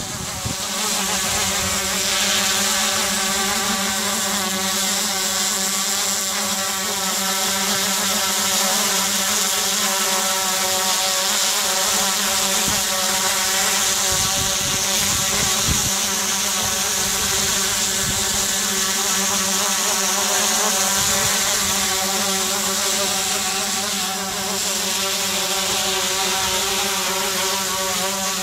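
A DJI Inspire quadcopter's four rotors buzzing steadily as it hovers and flies overhead. The whine holds an even, multi-tone pitch throughout.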